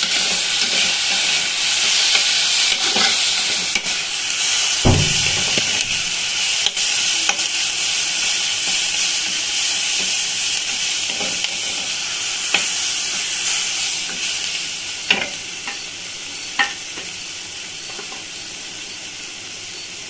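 Sliced onions and whole spices sizzling in hot oil in a kadai, stirred with a metal spatula that scrapes and knocks against the pan now and then. The sizzle gets quieter in the last few seconds.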